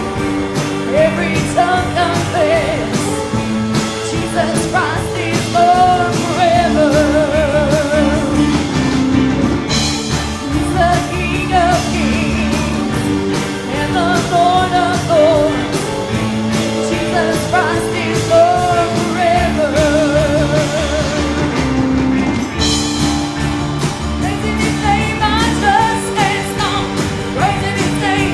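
Live church worship music: a singer holding notes with vibrato over a full band with a steady beat.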